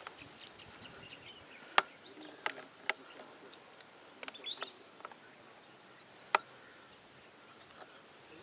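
Faint steady high-pitched insect buzz from the scrub, with a handful of sharp clicks, the loudest about two seconds in and again about six seconds in.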